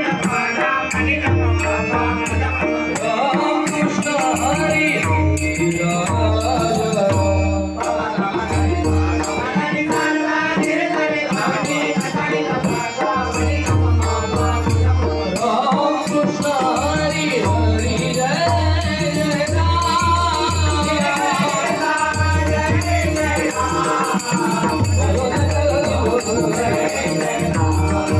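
Bhajan music, largely instrumental: a wavering melody line over a steady held tone, with clusters of deep drum strokes and a continuous rattling, jingling beat keeping time.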